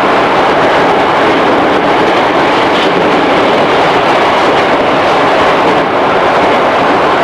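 Steady running noise inside a JR 211-series electric multiple unit's motor car (MoHa 210) on the move: a dense, even rumble of wheels on rail and the running gear under the car.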